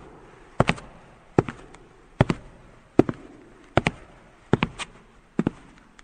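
Sharp clicks or knocks in groups of two or three, repeating evenly about every 0.8 seconds, each group trailing off with a short ringing tail.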